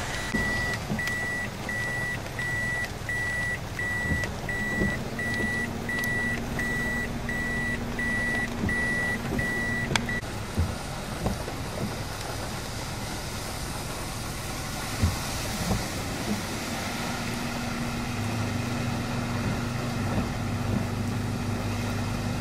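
Vehicle reversing alarm beeping at one high pitch, a little under twice a second, stopping about ten seconds in, over a steady low engine hum and background noise.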